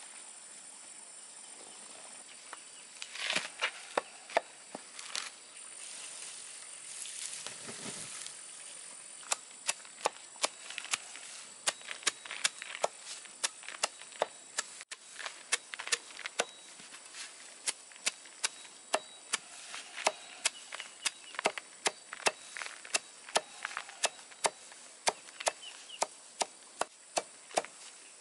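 Regular chopping strokes, about two a second, starting about nine seconds in and keeping an even pace, after a few scattered knocks and a rustle.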